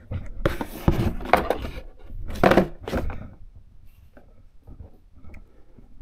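Handling noise: rustling, scraping and a few knocks as a handheld carbon monoxide detector and its cardboard box are moved about on a wooden desk. It is busiest in the first three seconds, then dies down to a few faint clicks.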